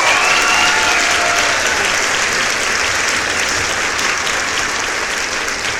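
Applause: a crowd clapping steadily, slowly growing quieter.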